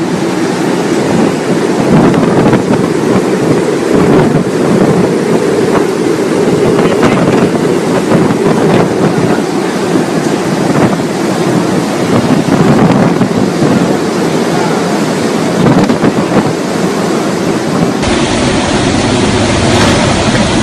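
Hurricane wind and rain blowing hard across the microphone, a loud, steady rushing roar with gusts. Near the end the sound changes abruptly to a duller, lower rumble.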